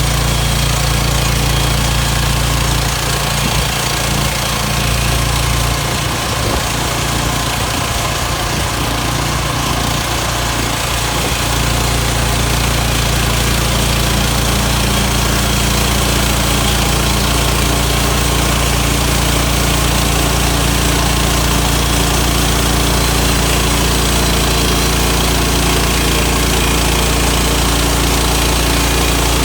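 Petrol engine of a Woodland Mills portable bandsaw mill running steadily while milling pine boards. It goes rougher and less even between about 3 and 11 seconds in.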